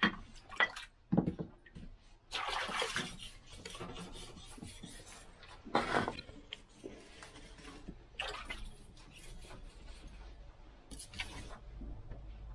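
Steel sashimi knife blade worked on a wet finishing whetstone in its last sharpening: irregular scraping strokes and light metallic clinks, with a few splashy sounds, the loudest strokes about a second in, between two and three seconds in and about six seconds in.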